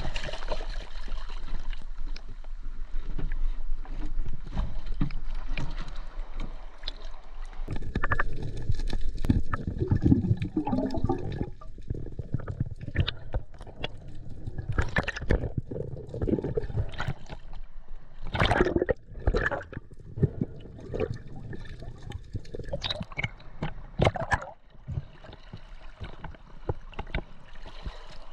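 Sea water sloshing and gurgling around a kayak and a diver in the water, with underwater bubbling. Several sharp knocks and splashes come through the second half.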